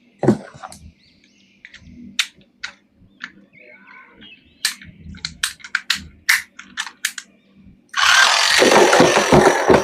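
Sharp clicks and taps of plastic toys and packaging being handled, then about eight seconds in a loud, rough rattling noise with rapid pulses starts suddenly and keeps going.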